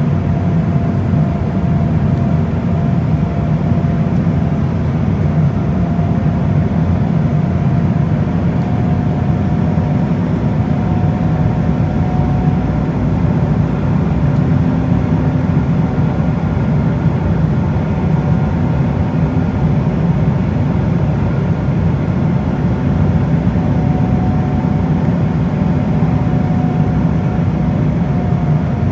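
Steady cabin noise of an Embraer E190 airliner in flight: a constant low rumble of engines and airflow, with a faint steady tone running through it.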